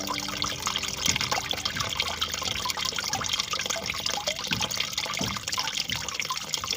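Flowing water trickling and babbling steadily, with many small splashes and drips.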